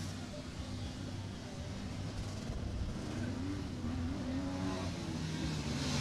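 Motocross dirt bike engine revving, its pitch rising and falling as the rider works the throttle around the track.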